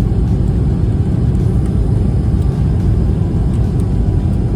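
Steady low rumble of airliner cabin noise in flight: engine and airflow heard from a window seat.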